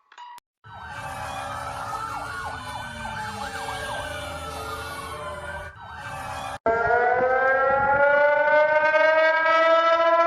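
Emergency-alert alarm sirens. First, several siren tones sweep up and down across each other over a noisy rumble. After a brief break about six and a half seconds in, a louder siren winds up, its pitch rising slowly.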